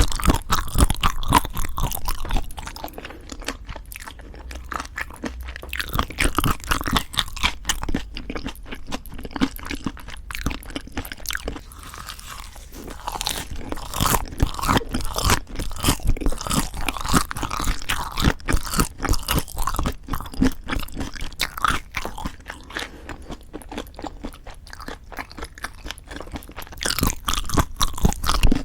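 Close-miked chewing and crunching of food eaten in leaf wraps: boneless chicken feet and raw fish bibimbap. A dense run of wet crackles and crunches, louder at the start and again near the end.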